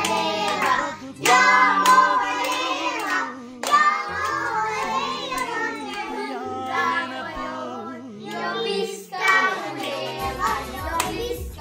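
Children singing a birthday song over a musical accompaniment, with hand clapping.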